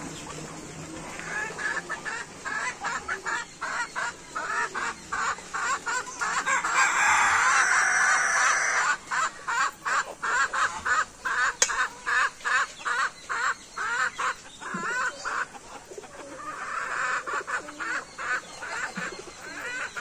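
Chickens clucking and cackling in long runs of short calls, about three a second, with a louder, drawn-out stretch of calling about seven seconds in and again near the end.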